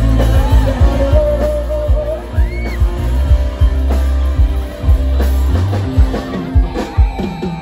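A live band plays with a steady heavy beat: drum kit, bass and electric guitar, with a male singer's amplified vocal carrying the melody, loud through the stage PA.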